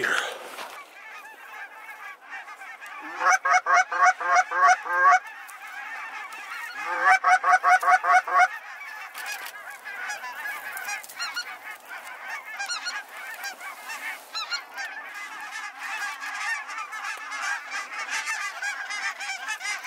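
A large flock of geese honking overhead in a dense, continuous chorus. There are two loud runs of rapid, evenly spaced honks, about three and about seven seconds in.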